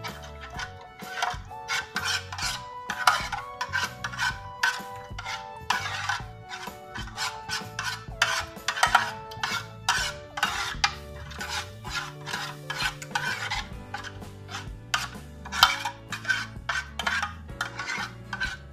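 Metal spoon stirring a thin liquid marinade in an aluminium baking pan: a busy run of wet scrapes and clinks of the spoon against the pan's bottom and sides. Soft background music plays underneath.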